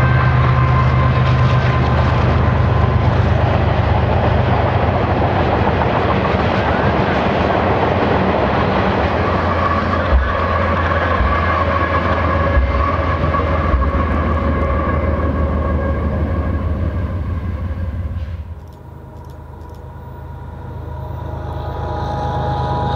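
Loaded coal train rolling past: steel wheels and cars rumbling on the rails over a steady diesel drone from its GE ES44AC distributed-power locomotives, with a few clunks from the cars about ten to fourteen seconds in. Near the end the sound drops off sharply, then a more distant train slowly grows louder as it approaches.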